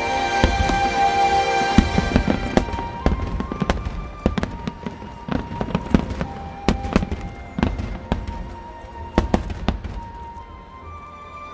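Fireworks going off in many sharp bangs and crackles over music, the bursts thinning out and getting quieter toward the end.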